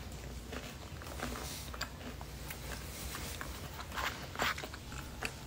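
Close-up chewing of a crisp, flaky snack: faint crunches and crackles throughout, with a few sharper crunches about four seconds in.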